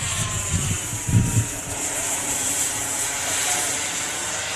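Radio-controlled model airplane engine running steadily overhead: a hissing drone with several pitched tones that drift slowly. A couple of low thumps come about a second in.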